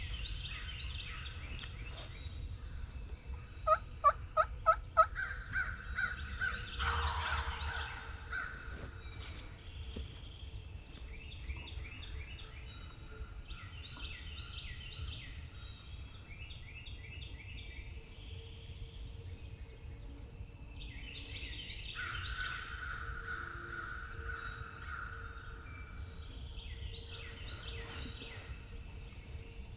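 Wild turkey gobbler gobbling about four times, with a run of five loud, close, sharp yelps about four seconds in. Songbirds chirp faintly throughout.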